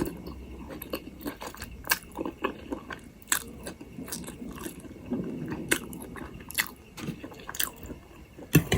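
Close-up eating sounds: biting and chewing food, with irregular sharp wet clicks and smacks of the mouth.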